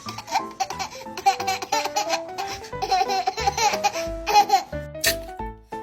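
A baby laughing in repeated bursts over background music with bass notes.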